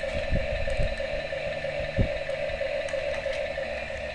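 Small electric motor and plastic gears of a battery-powered toy excavator running with a steady hum, with a few low knocks near the start and one about two seconds in.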